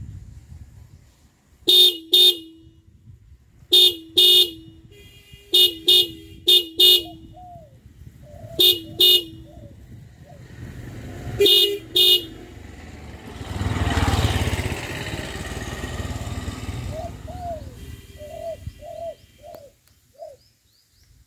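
A motor vehicle horn honking in quick double beeps, six pairs over about ten seconds. Then a vehicle passes, its road noise swelling and fading away.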